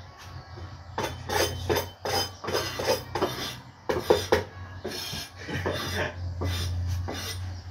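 A knife blade scraping over the crisp crackling skin of a whole roast pig in a run of quick rasping strokes, loudest from about one to four seconds in. A steady low hum runs underneath.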